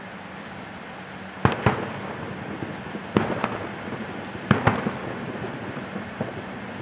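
Aerial firework shells bursting: three pairs of sharp bangs, each pair a fraction of a second apart and the pairs about a second and a half apart, over a steady background hiss.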